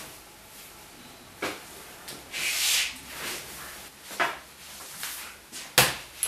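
Rustling and scraping as a man gets up from an office chair and moves about at a wooden desk, with a few light knocks. Near the end comes one sharp clack as the laptop lid is shut.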